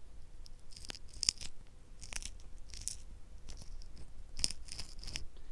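Worn ceramic-bearing jockey wheel turned slowly by hand, its unsealed bearing giving a faint, irregular crunching and clicking. The crunch comes from grit inside the bearing and its worn-out nylon races.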